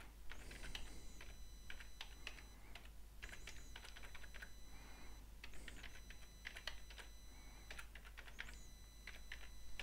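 Typing on a computer keyboard: a run of faint, irregular key clicks as a long word is typed out.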